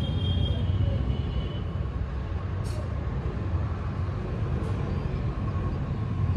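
Steady low rumble of background noise, with a faint high tone near the start and two faint ticks in the middle.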